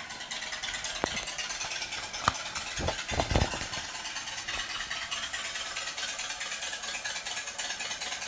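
A page of a large glossy book being handled and turned, with a few sharp paper clicks and then a short rustle and flap about three seconds in. Under it runs a steady hiss.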